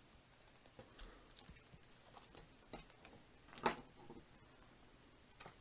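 Quiet handling noises: a few light clicks and taps as a small plastic parts bag and parts are set down on a cutting mat, the clearest tap about three and a half seconds in.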